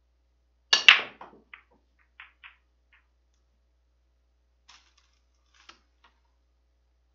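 A 9-ball break shot on a pool table. About a second in, the cue tip strikes the cue ball and, a fraction of a second later, a louder crack follows as the cue ball hits the racked balls. Scattered clicks of balls hitting each other and the cushions follow for about two seconds, with a few fainter clicks near the end.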